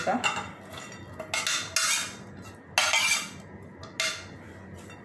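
A steel spoon clinks and scrapes against ceramic plates as shredded potato and carrot are pushed from one plate onto another. There are about five sharp clinks, each with a short ring, and the loudest comes about three seconds in.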